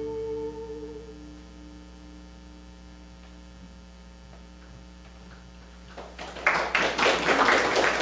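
The last sung note and acoustic guitar chord die away, leaving a few seconds of steady electrical hum. About six seconds in, an audience starts clapping loudly.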